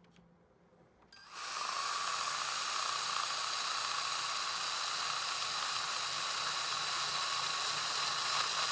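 Electric drill starts about a second in and runs steadily with a high whine, most likely boring out or enlarging a hole.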